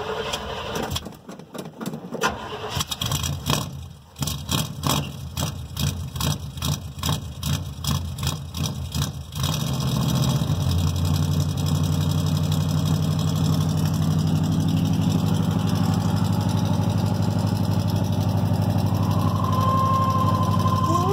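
1978 GMC Suburban's engine being cold-started without a choke in freezing cold. The starter cranks it in even pulses, about three a second, for some nine seconds; it then catches and settles into a steady cold idle, with a thin steady whine joining near the end.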